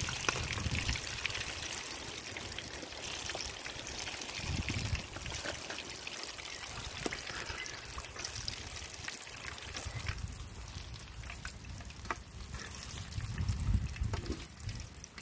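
Hot oil sizzling in a deep-frying pan of chicken bondas, a fine hiss with scattered crackling pops. The sizzle thins out in the second half as the fried bondas are lifted out.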